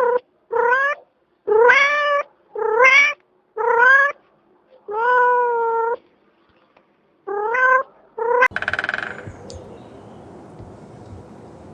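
Domestic cat meowing over and over, about eight separate meows with one drawn-out one in the middle. A little past eight seconds in, the meows stop and a short buzzy sound follows, then a steady low hiss.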